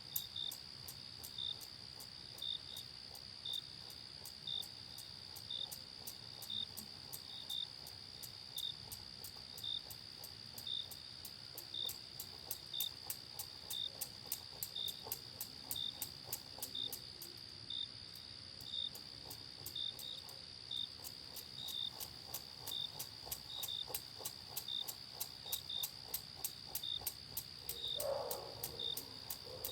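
Insects chirping: a steady high-pitched trill with short chirps roughly once a second over it. A brief lower sound comes near the end.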